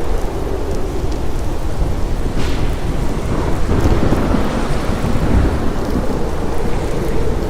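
Steady rain, heavy and even, over a deep continuous rumble like distant thunder.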